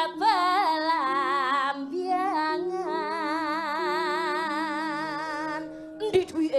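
A woman singing a Javanese sinden song into a microphone, holding long notes with a wide vibrato, over soft gamelan tones. The singing stops about six seconds in.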